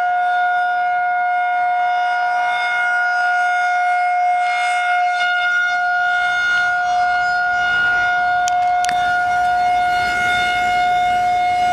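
Outdoor civil-defence emergency siren sounding a loud, steady tone held at one pitch, with a couple of faint clicks about eight and a half seconds in.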